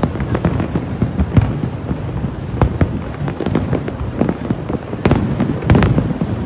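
Fireworks display: many sharp shell bursts in quick succession, with crackling, over a continuous low rumble.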